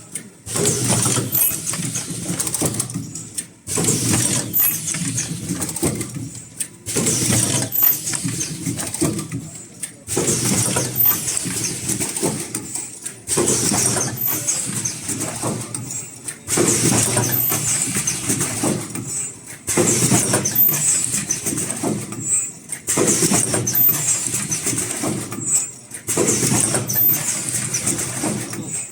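Automatic cup-shaped mask headband welding machine running, its working cycle repeating about every three seconds with a brief drop in sound between cycles.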